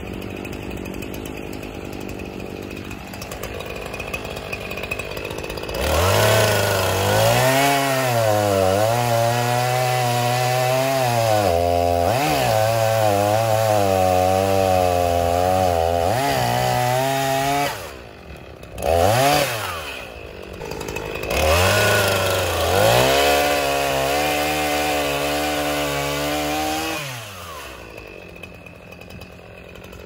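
Echo CS501P chainsaw cutting into the base of a dawn redwood trunk, the engine at full throttle with its pitch dipping and recovering under load. It idles at first, cuts hard from about six seconds in for around twelve seconds, drops back with one quick rev, cuts again for about five seconds, and falls back to idle near the end.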